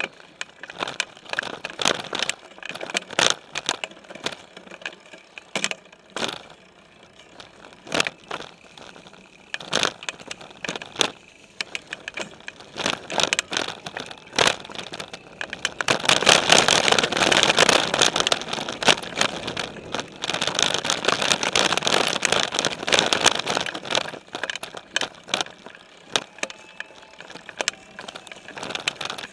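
Specialized Stumpjumper mountain bike riding a dirt and leaf-covered singletrack, heard through its frame: tyres crunching over the trail, with many sharp rattles and knocks from the bike as it hits bumps. From about halfway, for several seconds, a louder continuous rush fills in.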